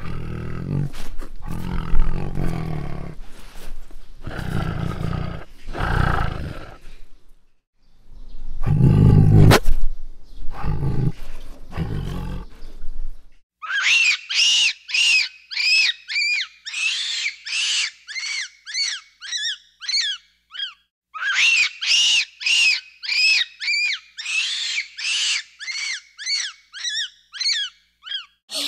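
A tiger roaring and growling in a series of deep, rough calls for the first half. It is followed by a monkey's rapid high-pitched squeaky calls, about two to three a second, breaking off briefly about two thirds of the way in.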